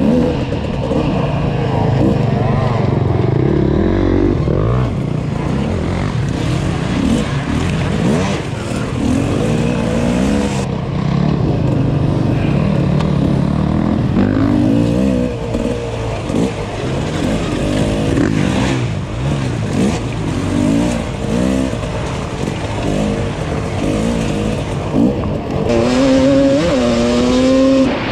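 Off-road motorcycle engine ridden hard, its revs rising and falling over and over as the throttle is opened and closed, with a clear climb in revs near the end.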